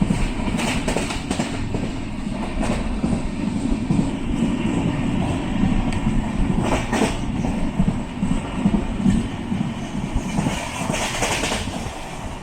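Express passenger train running at speed, heard from inside a sleeper coach: a steady rumble of wheels on rails, with irregular clacks as the wheels pass over rail joints.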